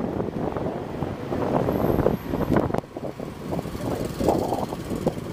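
Vehicle running along a street, heard from on board as it moves, with wind rumbling on the microphone.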